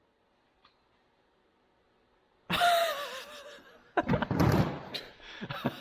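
Near silence for about two seconds, then a sudden wavering, falling cry or squeal, followed a second and a half later by a heavy thump with rattling clicks trailing off.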